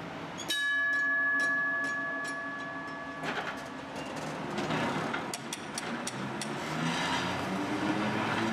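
Vintage tram's bell struck once, ringing out for a few seconds before it stops. Then the tram's traction motors whine, rising in pitch as it gathers speed, with clicks of the wheels over rail joints.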